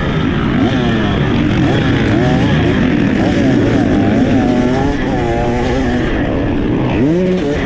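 Several two-stroke dirt bike engines racing in a pack, revving up and falling off again and again through the gears. The nearest and loudest is a 2023 KTM 300 XC two-stroke.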